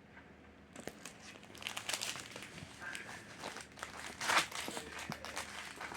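Diamond art kit packaging crinkling and rustling as it is handled, in irregular crackles, loudest about four seconds in.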